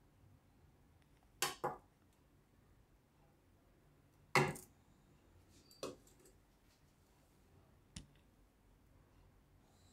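Metal ladle knocking against a ceramic serving bowl and a steel pot as curry is ladled out: a quick double clink, a louder knock a few seconds later, then two lighter clinks.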